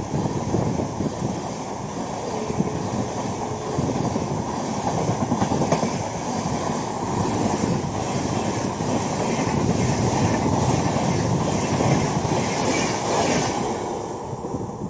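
A train passing close by, its wheels clattering in a steady rhythm over the rail joints. The clatter drops off near the end as the last of the train goes by.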